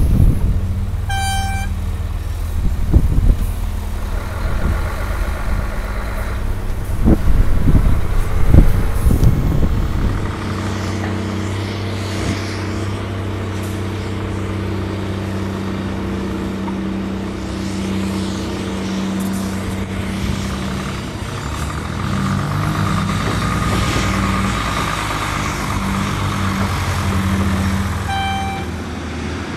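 Heavy diesel earthmoving machinery working: a Cat 345B crawler excavator's engine running, with loud thuds as loads of sand drop into a dump truck's bed for the first ten seconds or so. Then comes the steady diesel drone of a dump truck driving, its pitch rising and falling near the end. A short beep sounds about a second in and again near the end.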